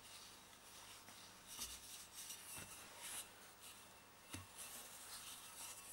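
Faint rubbing of a stainless steel flask used as a rolling pin, rolling pastry dough out on a floured work surface, with a few soft knocks.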